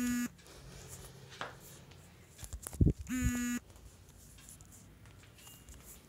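A smartphone being shaken by hand for a shake-to-win game: a short steady electronic buzz from the phone right at the start, then a few handling knocks and the same half-second buzz again about three seconds in, each time the shake registers.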